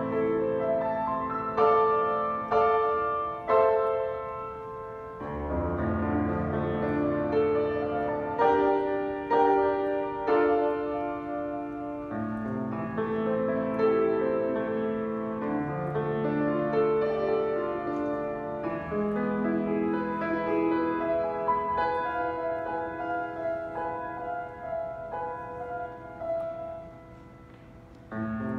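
Grand piano played solo: a classical piece of chords and running notes, with strong struck chords in the first few seconds, and the playing growing soft near the end.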